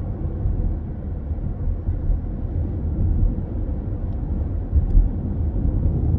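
Car driving at speed, heard from inside the cabin: a steady low rumble of tyres and engine, with a brief low bump about five seconds in.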